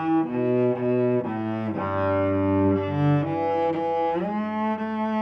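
Solo cello played with the bow: a slow melody moving from note to note, with two strings sounding together in places over a low held note. Near the end it slides up into a new note.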